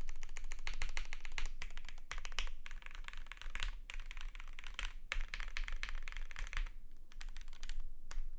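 Typing on a KBD8X mk2 custom mechanical keyboard with lubed Gateron PRO Yellow linear switches on a polycarbonate plate. A fast, dense run of keystrokes thins out to a few separate presses over the last second and a half.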